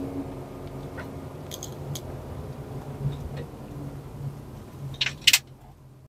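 Steady low engine and road hum inside a moving car's cabin, with a few sharp clicks about five seconds in.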